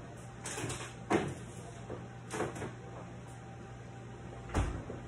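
A refrigerator door being opened and shut as a sheet pan is put inside: four separate knocks and bumps, the loudest about a second in and near the end.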